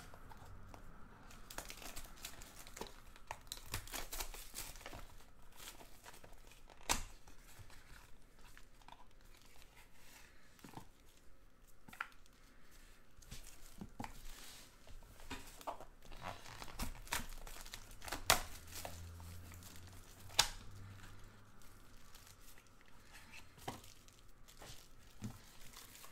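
Plastic wrap being torn and crinkled off a sealed trading-card box, and its packs handled, with a few sharp taps as packs are set down on the table.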